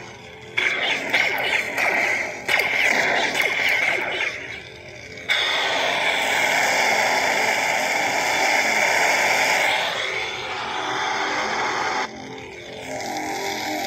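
Custom unstable light-side lightsaber sound font played through a saber hilt's speaker on a Crystal Focus 8 board: a run of sudden swing and clash effects over a hum, then a louder, steady, hissing effect from about five seconds in. Near the end it drops suddenly to a quieter, fluctuating, whining-ish hum.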